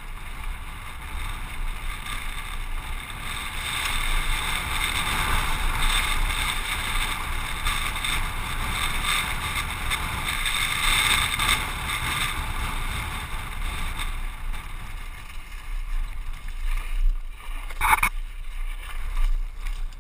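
Mountain bike rolling fast down a loose, rocky dirt trail, heard from a helmet camera: wind rushing over the microphone with tyres and bike rattling on the gravel, loudest in the middle and easing as the bike slows. A brief squeal near the end as the bike comes to a stop.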